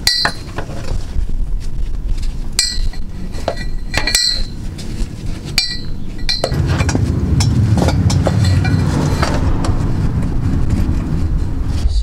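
Metal clinks and taps with a short ring, from hands working a bracket and cable loose under a car: four sharp ones in the first six seconds, with fainter knocks between. A steady low rushing noise sets in about halfway.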